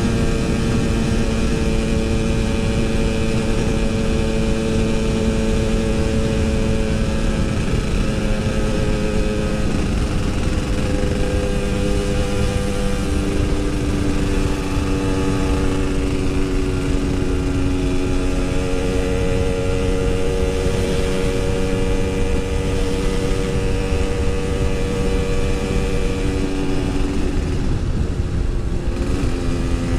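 Yamaha RX-King 135cc single-cylinder two-stroke motorcycle engine running while riding, holding a steady pitch for stretches and shifting pitch several times as throttle and gear change.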